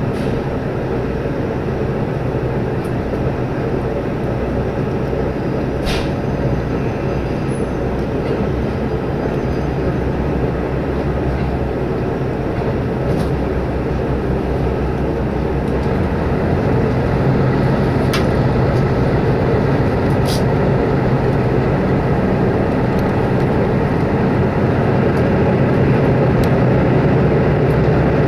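Running noise heard inside a diesel limited-express railcar under way: a steady low hum and rumble that grows slightly louder in the second half, with a few sharp clicks from the track.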